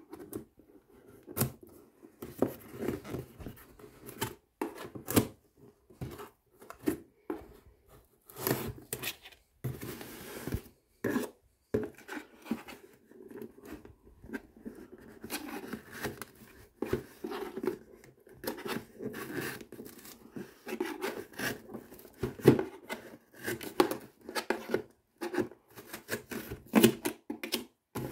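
A blade scraping and cutting along packing tape on a cardboard box, with irregular clicks, rubbing and tearing as the taped edge is slit and pulled open.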